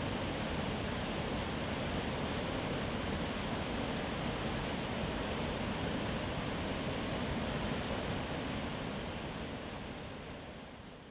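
White water of a river waterfall in flood, pouring and rushing as one steady, dense noise. It fades out over the last couple of seconds.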